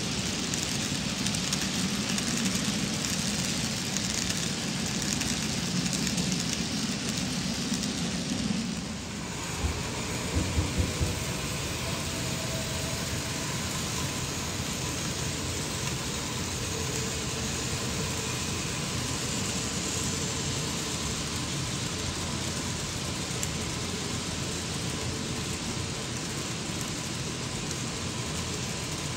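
N scale model freight train running on the track: a steady rushing of small wheels on rail and locomotive motors, fuller and closer for the first nine seconds, then steadier and a little quieter after a sudden change. A few short low thumps come just after the change.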